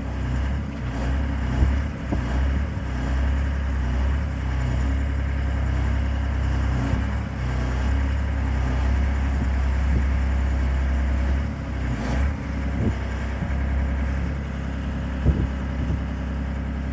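Engine of a Hooby LC90 narrow-track crawler crane running steadily while the crane slews and the boom is worked, with a few short knocks near the end.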